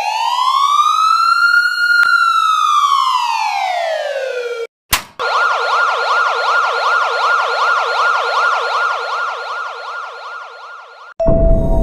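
Electronic siren circuit sounding one slow wail that rises and falls, then a click and a fast yelp sweeping up and down about four times a second. Music starts near the end.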